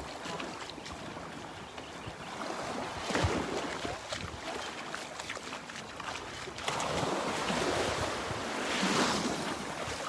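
Surf washing up on the beach, with some wind on the microphone. The wash swells briefly about three seconds in, then again, louder and longer, for a few seconds near the end.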